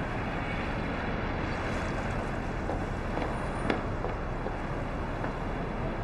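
Steady background noise of room ambience, with a faint click about three and a half seconds in.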